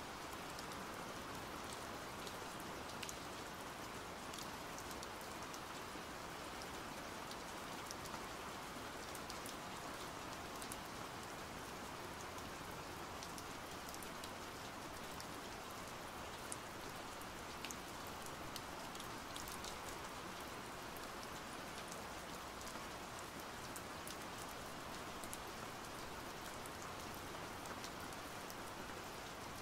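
Steady rain, with scattered sharp ticks of single drops.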